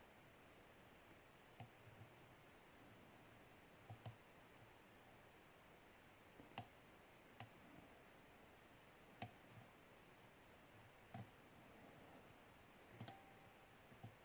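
Faint, sparse clicks of a lock pick working the pin tumblers of a Syneco padlock under heavy tension, a click every second or two over quiet room tone.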